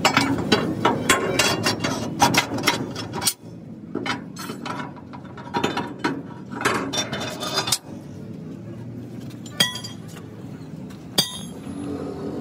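Steel leaf-spring leaves of a truck spring pack clinking and knocking against each other as they are handled and lined up: a quick run of sharp metal clinks for the first few seconds, sparser clinks after, then two single clinks near the end.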